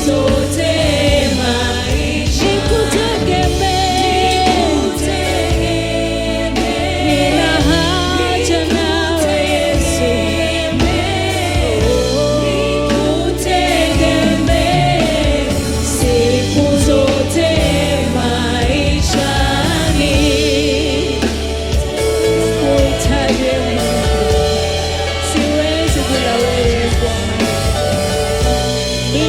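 Gospel worship song: a choir singing over a steady band accompaniment.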